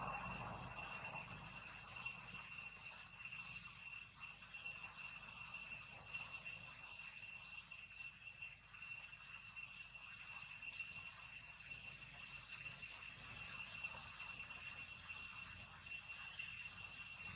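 Insects in the forest undergrowth, crickets or cicadas, droning: a steady high-pitched chorus held at a constant pitch.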